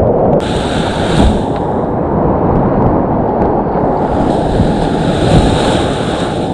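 Whitewater creek rapids rushing loudly around the kayak, heard close to the water from the boat. A brighter hiss of spray and splashing rises about half a second in and again from about four seconds on.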